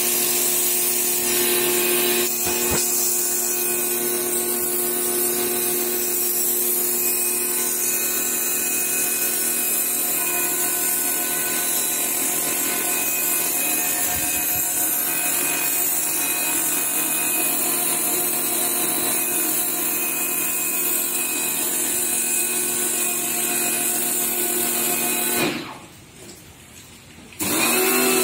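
Bosch Aquatak 125 electric pressure washer running steadily: the motor and pump hum under the hiss of the high-pressure water jet striking concrete. About 25 seconds in, it cuts out for roughly two seconds, then starts up again.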